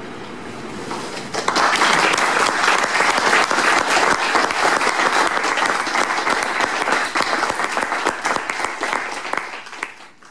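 Audience applauding, breaking out about a second and a half in and dying away near the end.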